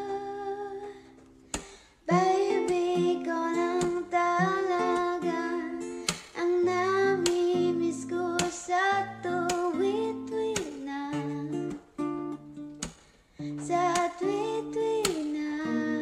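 A woman singing a Tagalog love song while strumming an acoustic guitar, with a short break about a second in before the next line.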